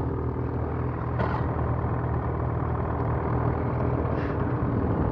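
Ski-Doo Gen 4 850 two-stroke snowmobile engine running at a steady pitch.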